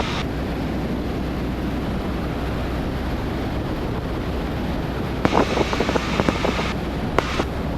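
Steady drone of a Cessna 172N's four-cylinder engine and propeller in the cabin, heard as an even rushing hum. About five seconds in comes a short run of crackling clicks.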